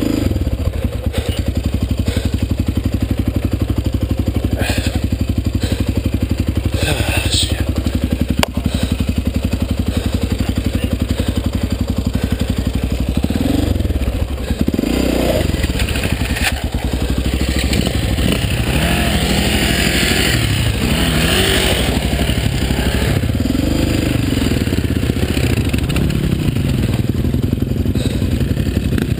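Dirt bike engines: one idles steadily close by, and several times in the second half the revs rise and fall. A few sharp knocks come in the first third.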